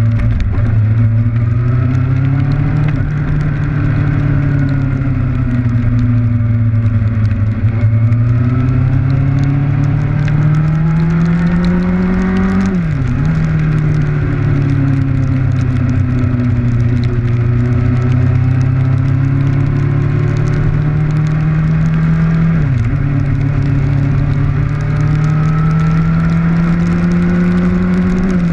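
Kawasaki Ninja motorcycle engine running under way, its pitch slowly rising and falling with the throttle and dipping sharply twice, once about halfway through and again later on, over wind and rain noise on the camera.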